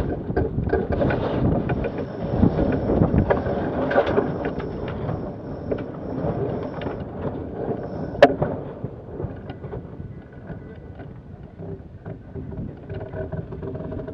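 Wind buffeting the microphone and water rushing along the hull of a sailing yacht under way, louder over the first few seconds, with scattered clicks and knocks and one sharp crack about eight seconds in.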